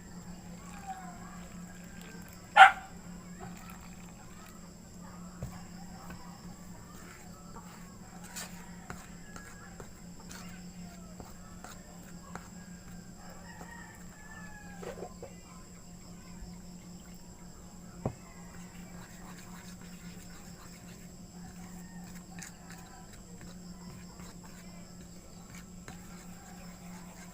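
Faint, scattered animal calls that slide in pitch over a steady low hum. One very loud, sharp, short sound comes about two and a half seconds in, and a click near eighteen seconds.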